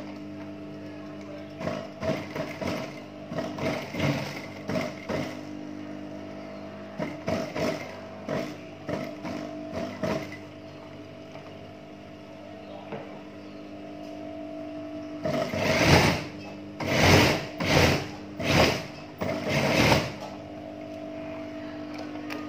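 JUKI industrial sewing machine stitching in short runs of a second or so, over a steady hum. Near the end come several louder, harsher bursts.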